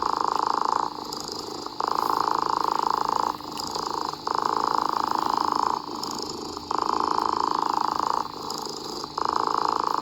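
A cat purring steadily, swelling and easing in alternating phases about a second long.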